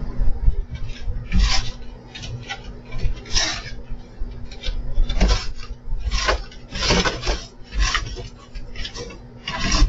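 Cat hissing and spitting in a run of short, sharp bursts, with thumps and scuffling on the wooden deck boards, while fending off a coyote's lunges.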